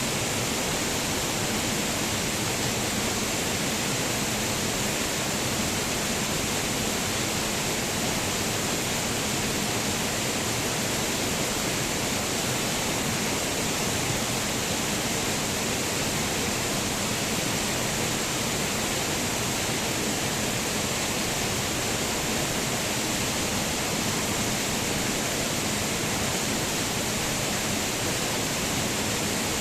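Waterfall, water falling and splashing in a steady, unbroken rush.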